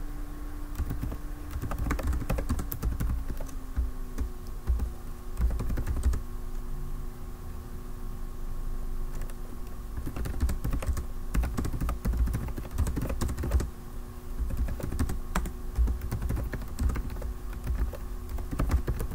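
Typing on a computer keyboard: clusters of quick keystroke clicks with short pauses between them, over a steady low hum.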